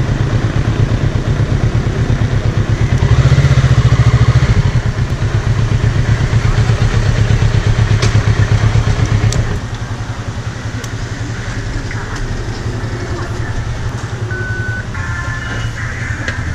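Kawasaki Z650's parallel-twin engine running at low speed as the motorcycle pulls up to a fuel pump. It is louder around three to five seconds in and settles to a quieter idle about ten seconds in.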